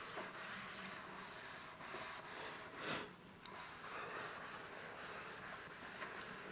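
Two soapy sponges squeezed and rubbed by hand in a foam-filled sink, with one louder squeeze about three seconds in.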